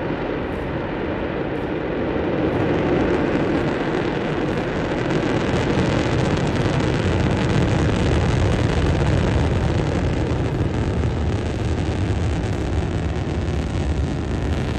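Long March 2D rocket engines firing at liftoff and during the climb: a loud, steady noise that turns deeper and slightly louder after a few seconds.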